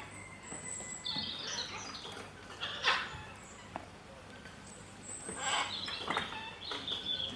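Birds chirping, with short high whistled calls repeated through, and two brief louder sounds about three and five and a half seconds in.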